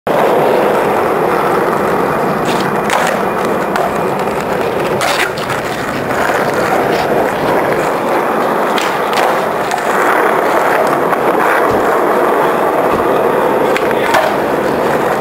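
Skateboard wheels rolling over paving: a steady, loud rolling rumble with a few sharp clicks scattered through it.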